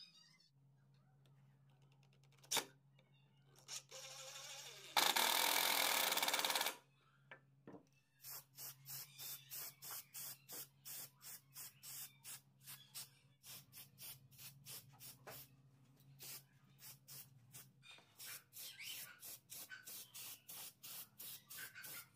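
Aerosol lacquer spray can hissing: one long spray about five seconds in, then a quick run of short spray bursts, a few a second. A faint steady low hum runs underneath.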